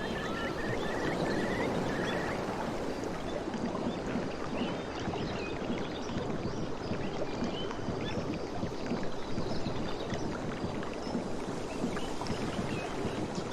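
Sea waves washing and lapping: a steady, even wash of water, with a few faint short high notes near the start.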